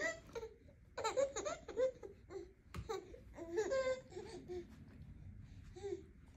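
Baby laughing and squealing in short, high-pitched bursts, loudest about a second in and again around four seconds in.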